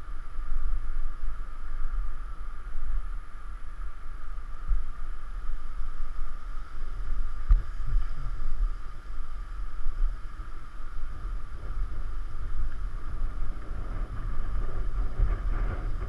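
Wind buffeting a bike-mounted GoPro's microphone while riding: a gusty, fluctuating low rumble over a steady hiss.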